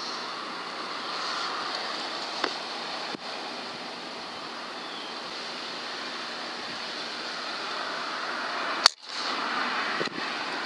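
Steady hiss of outdoor background noise, broken by one sharp, loud crack about nine seconds in that is followed by a brief dropout.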